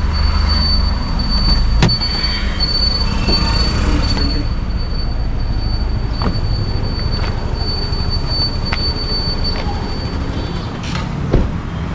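Steady low rumble of road and traffic noise heard from inside a moving car, with a thin, steady high-pitched whine that stops near the end and a few light clicks.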